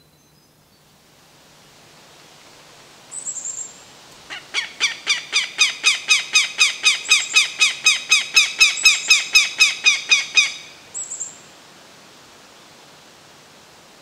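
Adult northern goshawk giving its rapid kak-kak-kak alarm call, a run of about thirty notes at roughly five a second that swells in loudness and then stops abruptly. A few brief high chirps come just before and just after it.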